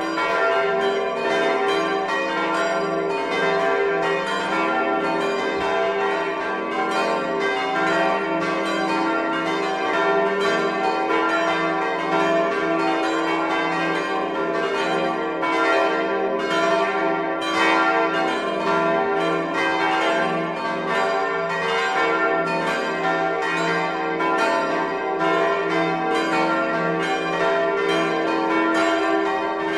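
Several church bells ringing together in a full peal: a dense, unbroken run of overlapping strikes over a steady lingering hum.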